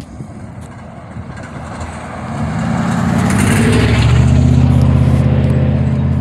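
A car drives past close by, its engine and tyre noise swelling to a peak about three and a half seconds in, then a low steady engine hum carries on.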